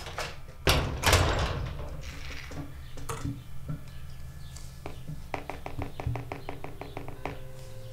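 A door shutting with two heavy knocks about a second in, over a steady low hum. Later a quick regular run of light clicks, about seven a second for two seconds, as a metal bombilla is worked in a mate gourd.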